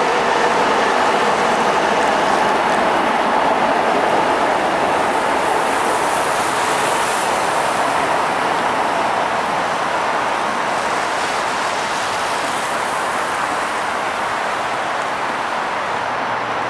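Freight train cars rolling away on jointed track, a steady rumble of steel wheels on rail that slowly fades, mixed with tyre hiss from traffic on wet pavement.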